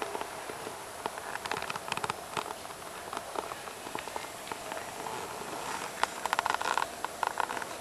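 Homemade Kelvin water dropper running: water dripping from its two cylinders into metal cans, an irregular patter of sharp clicks over a low hiss, thickening into a rapid run of clicks near the end.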